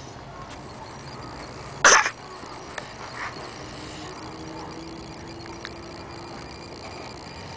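A sleeping man snoring: one short, loud snort about two seconds in, then a fainter one about a second later.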